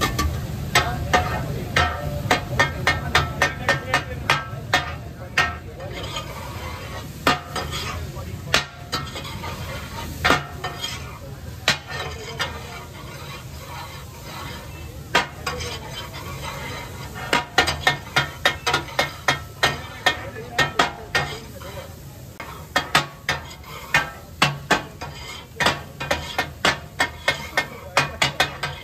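Metal spatulas clacking and scraping on a large flat tawa griddle as fish katakat is chopped and tossed, over a steady sizzle. The clacking comes in quick runs of about three strikes a second, thins out near the middle, then picks up again.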